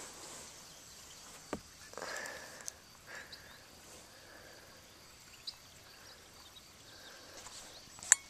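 Quiet rural outdoor ambience with a few faint chirps, broken by three sharp clicks.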